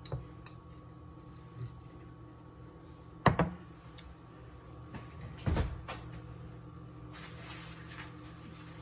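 Kitchen handling noises: a few light clicks, then two sharp knocks about three and five and a half seconds in, followed by a brief rustle, over a steady low hum.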